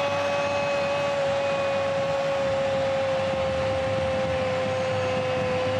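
Spanish TV football commentator's long, held goal shout, one unbroken note sagging slightly in pitch, over stadium crowd noise.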